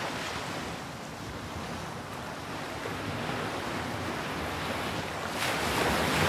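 Sea waves breaking and washing on the shore in a continuous rush, with a louder surge about five seconds in.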